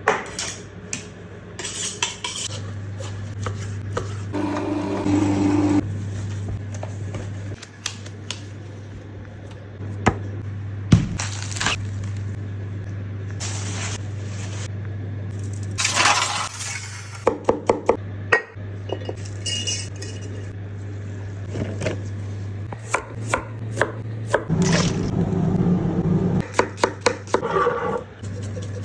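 Metal kitchen utensils and pans clinking, clattering and scraping in a string of sharp knocks, over a steady low hum.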